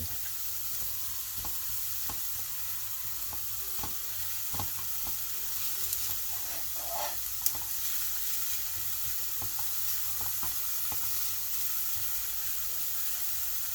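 Sliced carrot, cabbage and onion sizzling gently in sesame oil in a heavy pan as they are stir-fried, with the utensil clicking against the pan now and then and one sharper knock about halfway through.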